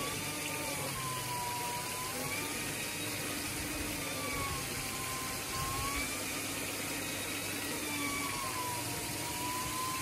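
Hoover 5464 shampoo-polisher's motor and rotating brushes running on a wet, soapy rubber mat: a steady whir over a wet scrubbing hiss, its whine slowly dipping and rising in pitch every few seconds as the machine is worked across the mat.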